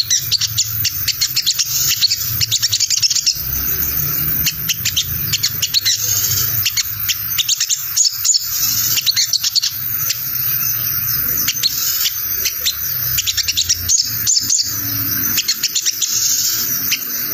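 Olive-backed sunbird (sogon) giving its rapid 'ngriwik' chatter: a dense, unbroken stream of quick, high, scratchy notes, like a tangled cassette tape, over a low steady hum.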